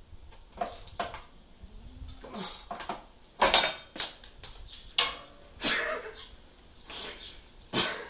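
Ratchet wrench straining on a seized, rusted exhaust-flange bolt under a C5 Corvette, a bolt that ends up sheared off, with a short strained grunt. In the second half come about six sharp clinks and knocks, roughly a second apart.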